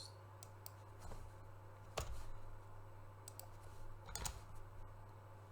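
Scattered clicks of a computer mouse and keyboard, a handful at uneven intervals, over a steady low hum.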